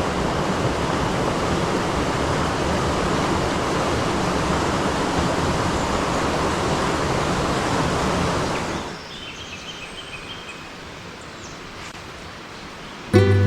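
Mountain stream water rushing steadily. About nine seconds in, it drops to a much quieter flow, and acoustic guitar music starts near the end.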